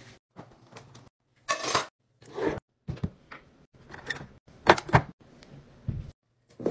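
Short separate bursts of kitchen handling noise: knocks, clicks and rustles as cabinet doors and plastic storage organizers are handled, with a few sharp knocks among them.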